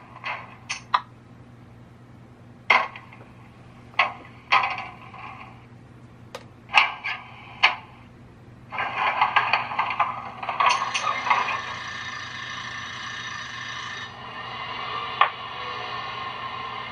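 Model locomotive sound decoder playing through its small speakers: a run of short sharp clanks and clicks, then about nine seconds in the ALCo 244 diesel engine sound starts up, louder at first, and settles into a steady idle.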